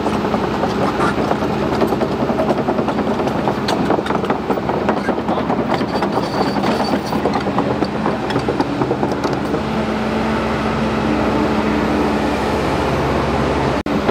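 Large Kobelco crawler excavator's diesel engine running under load as the boom and bucket move, with scattered metallic clanks. The sound drops out for an instant near the end.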